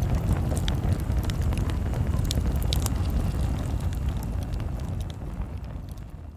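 Campfire crackling with scattered sharp pops over a low rumbling background, fading out near the end.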